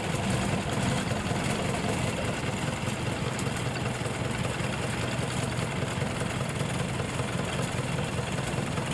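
An engine running steadily at idle, a constant low hum with a noisy rattle over it.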